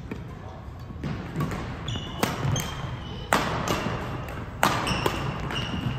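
Badminton rally: racket strings striking a shuttlecock three times, about a second apart, with fainter hits and sneakers squeaking on the court floor between the strokes.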